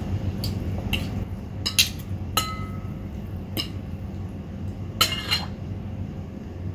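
Two metal forks clinking against a ceramic bowl as noodles are tossed and mixed: scattered sharp clinks, one ringing briefly about two and a half seconds in, and a quick run of clinks about five seconds in.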